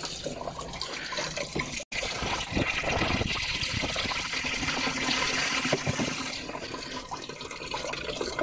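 Water being poured into a car radiator's filler neck and rusty water splashing out of the disconnected bottom hose into a plastic bucket, a light rinse of a rust-clogged radiator. It cuts out for an instant just before two seconds in, then the splashing is louder.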